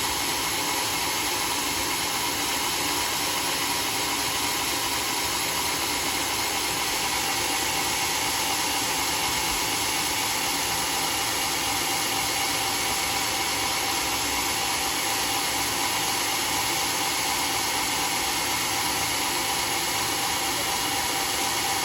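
Sawmill machinery running steadily: an even, unbroken whirring hiss with a faint steady whine in it, no change in load.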